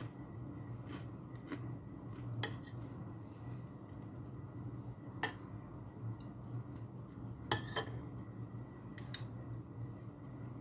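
A metal fork and spoon clinking and scraping against a ceramic plate during a meal. There are a handful of separate sharp clinks a second or more apart, the loudest two in the second half. A steady low hum runs underneath.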